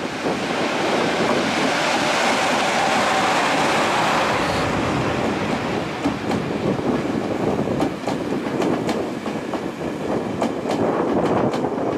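An EF66 electric locomotive running past close by, followed by a rake of new, unpowered Tobu 60000 series cars in tow. From about halfway through, their wheels click over the rail joints in an uneven series.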